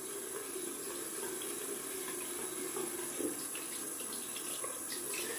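Water running steadily from a bathroom tap into the sink while shaving lather is rinsed off the hands.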